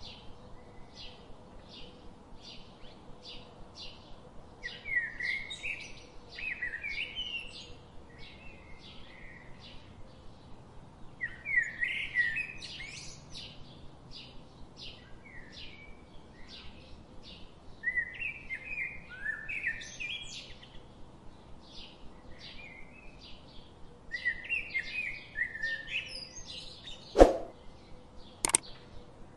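Small birds chirping in a steady run of short high notes, about three a second, with louder warbling song phrases breaking in every few seconds. Near the end come two sharp clicks.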